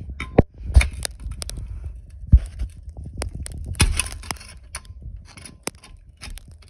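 Pry bar clanking and scraping on a rust-seized exhaust V-band clamp joint as it is worked loose: a string of sharp metal knocks, the loudest a little over two seconds in, with scraping between them.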